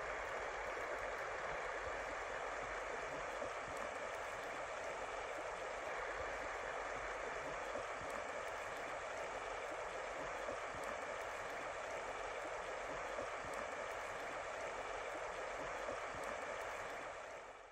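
Shallow river running over stones: a steady rush of flowing water that fades out at the very end.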